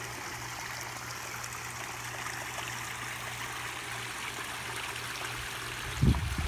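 Water running steadily over the rocks of a newly built backyard pond's stream or waterfall. There is a short low thump near the end.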